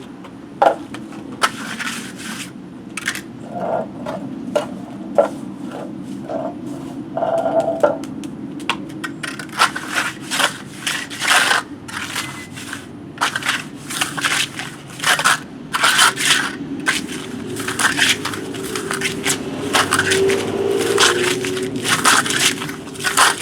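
Trowel scraping gritty cement mix over a concrete driveway in repeated short strokes, sparse at first and then coming quickly, about two a second, from the middle on.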